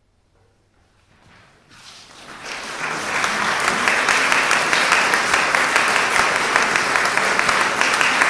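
Audience applauding: a few scattered claps about a second in, swelling into steady, full applause by about three seconds in.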